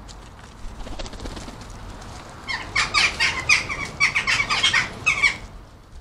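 Western jackdaws calling: a quick run of about a dozen short, sharp calls, starting about two and a half seconds in and lasting some three seconds.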